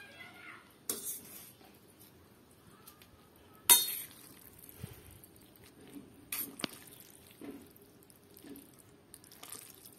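Metal fork clinking and scraping against a stainless steel bowl as cooked instant noodles are stirred and lifted. Several sharp clinks stand out, the loudest about four seconds in.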